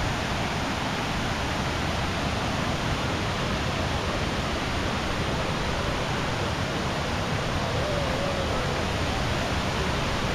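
Steady rushing of water pouring down the Kuang Si Falls cascades, an even, unbroken noise.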